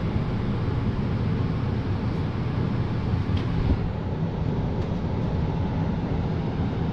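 Furnace blower running steadily, moving air with a rushing sound over a low motor hum.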